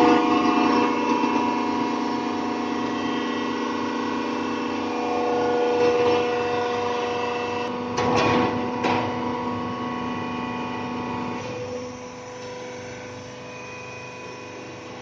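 Injection molding machine running with a steady hum made of several tones. Two sharp knocks come about eight and nine seconds in, and the hum becomes quieter near the twelfth second.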